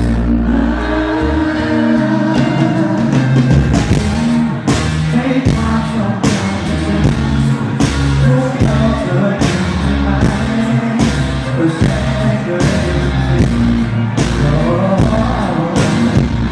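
Live pop-rock band playing with a singer: drums, heavy bass and guitars. The bass is boomy and poorly balanced because it is recorded right in front of a subwoofer cabinet. A low sustained bass note fades in the first second, and steady drum hits come in about four seconds in.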